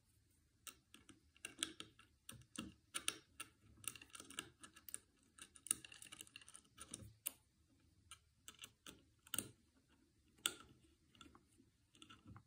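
Faint, irregular small metallic clicks and taps of a CNC z-axis being assembled by hand: the steel lead screw, its brass nut and anti-kickback nut, and bolts knocking against the aluminium carriage as they are fitted.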